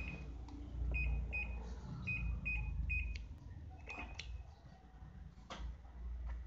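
Washing machine control panel beeping: about six short, high beeps in the first three seconds, as buttons are pressed. Then a few sharp clicks, over a low rumble.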